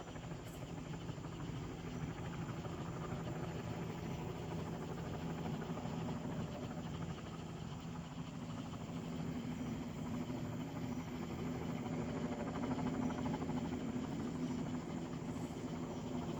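Air ambulance helicopter's rotor and turbine running steadily with a constant low hum, growing a little louder partway through.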